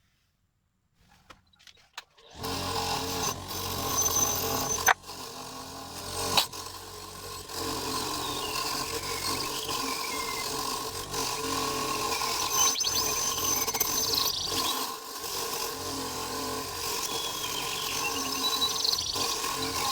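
A few light clicks, then an electric power tool switched on about two seconds in and running steadily, its note shifting now and then as it works; a couple of sharp knocks stand out around five and six and a half seconds.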